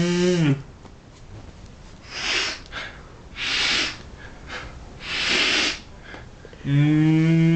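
A man's held, humming note breaks off, followed by three breathy gasps a second or so apart, the wind-up of a sneeze. The hum starts again near the end.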